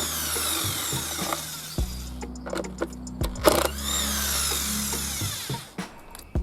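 A power tool running in two spells of about two seconds each while taking apart a washing machine, with knocks and clatter of parts in between.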